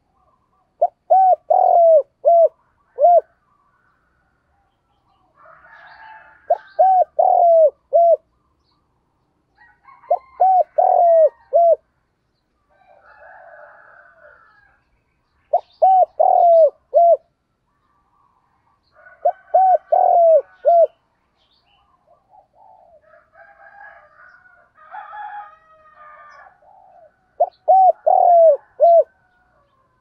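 Spotted dove cooing: six phrases of four or five short coos each, repeating about every four to five seconds. Fainter bird chirps fill the gaps between phrases.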